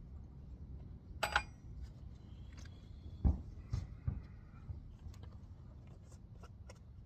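Metal tools or parts being handled: a sharp clink with a short ring a little over a second in, then a few dull knocks and small clicks over a steady low rumble.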